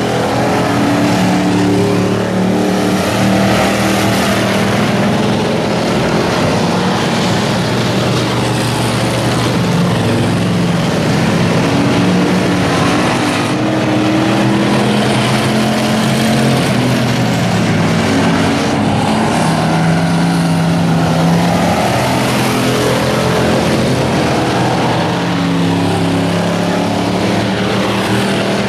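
Several Rusty Bolt class dirt-track stock cars racing, their engines running loud and overlapping, the pitches rising and falling as the cars go around the track.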